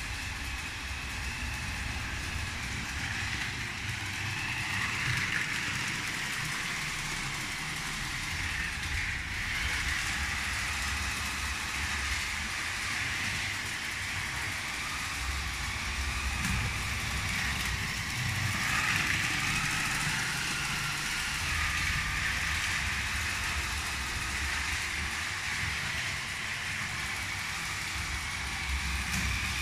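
Lego 12V train running on plastic track: the locomotive's electric motor gives a wavering whine over a low rumble from the wheels and rolling stock.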